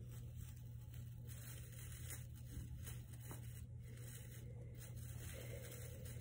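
Faint rustling of artificial Christmas tree branches being handled, with a few light ticks, over a steady low hum.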